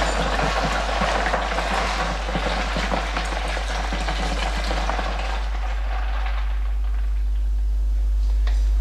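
Hot wort pouring from a stainless steel stockpot into a plastic fermenter bucket of water: a steady splashing rush of liquid that tails off near the end as the pot empties. A steady low hum runs underneath.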